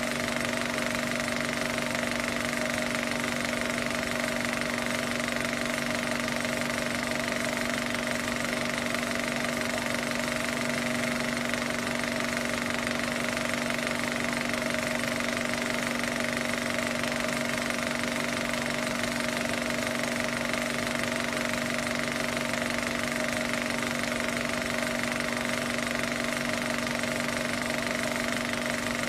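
Film projector running steadily, a mechanical whir with a steady hum that does not change, from an old silent home movie being played for transfer.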